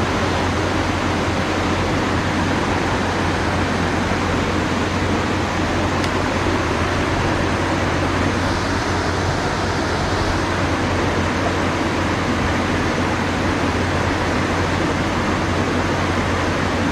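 Creek water rushing over rocks: a loud, steady rushing noise with no change throughout.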